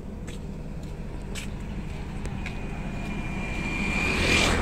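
A motor vehicle approaches and passes close by, growing louder to a peak near the end and then easing off, with a thin steady whine in its sound, over a steady low engine rumble.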